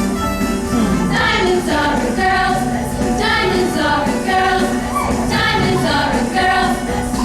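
Show choir singing over instrumental backing. The voices come in about a second in, in short repeated phrases.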